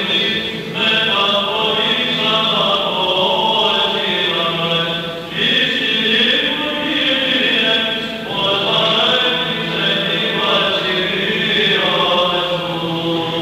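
Voices chanting a slow, melismatic Byzantine-style melody over a steady, held drone (ison), with short breaths between phrases every few seconds.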